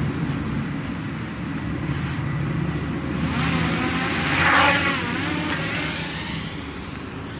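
FPV quadcopter's motors and propellers spinning up for lift-off: a low hum rises into a louder whine and rush of air about three to four and a half seconds in, then eases as the quad flies off.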